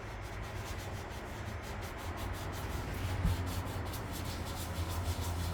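Hand rubbing over the painted hood of a 1958 Johnson outboard motor, in quick repeated strokes, with a steady low hum underneath and a single light knock about three seconds in.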